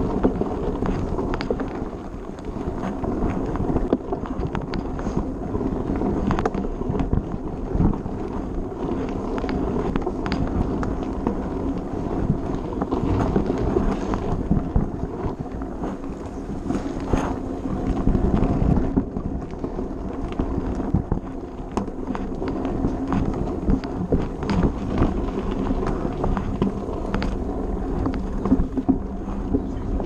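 Rock Machine Blizzard 50 mountain bike ridden over a bumpy dirt trail: knobby tyres rolling and crunching over the ground, with frequent rattles and knocks from the bike, and wind on the microphone. Near the end it rolls out onto asphalt.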